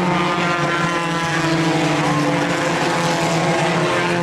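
Several race car engines running at speed around an oval track. Their overlapping engine tones hold steady, with pitches shifting slightly as the cars pass.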